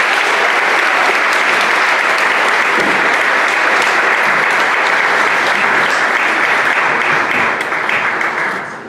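An audience applauding loudly and steadily, dying away near the end.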